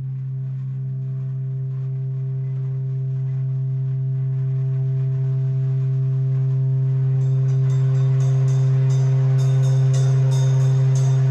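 Improvised electronic music: one steady low drone note with overtones, slowly growing louder. Crisp hi-hat-like ticking joins in about seven seconds in.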